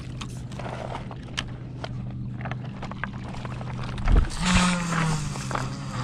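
Fishing reel clicking, then a cast about four seconds in: a thump and a whoosh as the rod swings, with the conventional reel's spool whirring as line pays out, its pitch dropping slightly.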